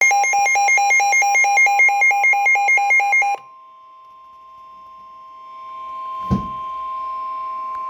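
Weather radio alert: a loud, rapid two-note electronic beeping for about three and a half seconds, which then stops. Under it and then alone, the steady NOAA Weather Radio warning alarm tone, a single pitch just above 1 kHz, grows louder. One sharp click comes about six seconds in.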